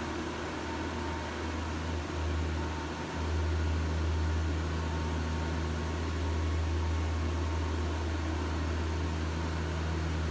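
Toyoda FV1165 CNC vertical machining center running: a steady low mechanical hum that briefly dips about two seconds in, then steps up louder about three seconds in and holds.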